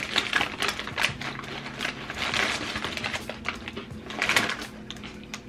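Crisp potato chips being chewed, close up: a fast, irregular run of crunches over a faint steady low hum.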